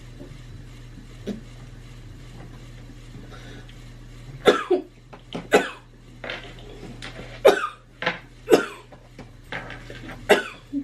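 A woman coughing hard, a run of about seven short, harsh coughs in quick fits that starts about four and a half seconds in; the coughing is faked as part of a coughing-up-blood prank.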